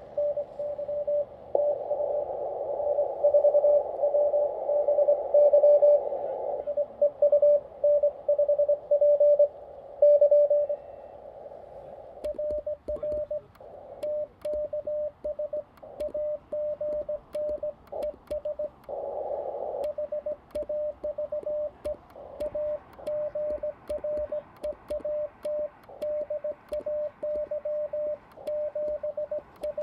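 Morse code (CW) from a Xiegu G90 HF transceiver's speaker: a single mid-pitched tone keyed on and off in dots and dashes. For the first dozen seconds it sits over a band of receiver hiss and varies in strength; after that it is cleaner and even in level, with faint sharp clicks along with it.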